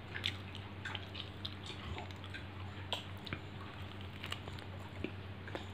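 A person biting and chewing a crisp, round, seed-covered sweet close to the microphone: a run of small, irregular crunches and mouth clicks, over a faint steady hum.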